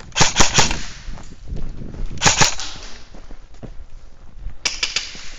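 Airsoft replica guns firing in short bursts of sharp snapping shots: about four in quick succession at the start, two or three more about two seconds later, and a final pair near the end.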